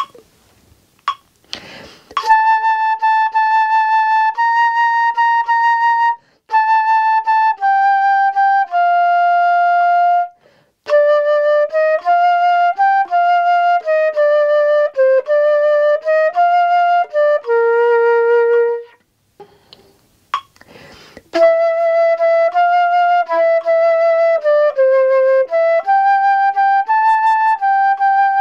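Solo concert flute playing a rhythm exercise in cut time: a run of separate short and held notes with brief breaks for breath. About two-thirds of the way through the phrase ends, a quick inhale is heard, and a second exercise begins.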